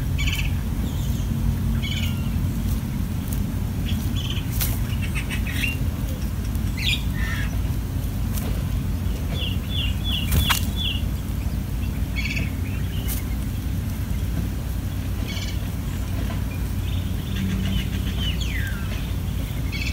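Birds chirping in short, high calls, with a quick run of about five chirps midway and a falling note near the end, over a steady low rumble. A few sharp clicks.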